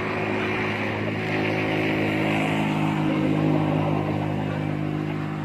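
A motor vehicle's engine running close by at a steady pitch, growing louder to a peak a little past the middle and then fading slightly.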